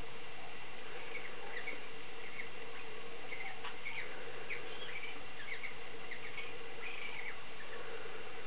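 Cockatiels mating, giving a quick run of short, high squeaky chirps, several a second, over a steady background hiss.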